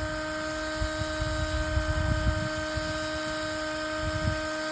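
Steady electrical hum of several pitches, with a cluster of low thumps and rumbles in the middle and one more near the end.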